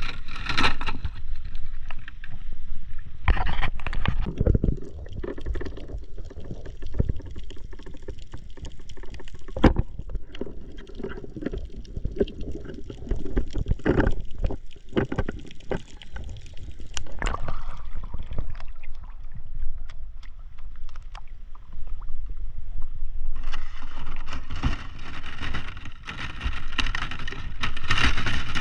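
Water noise picked up by a spearfisher's action camera: a muffled rush and rumble of water with scattered knocks and clicks. Near the end it turns to louder, hissier splashing and sloshing.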